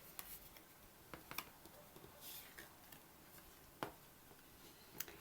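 Near silence with a few faint clicks and light rustles of tarot cards being handled and laid down.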